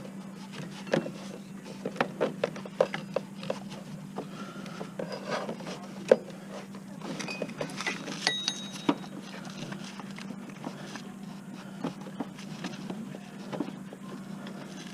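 Scattered light clicks, taps and rubbing as a new serpentine belt is worked by hand around an engine's bottom pulley, over a steady low hum.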